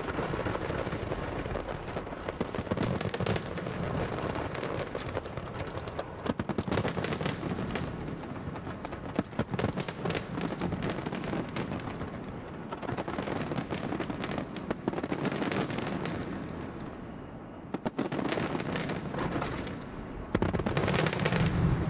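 Fireworks display exploding in dense waves of rapid crackling and bangs, with short lulls between salvos.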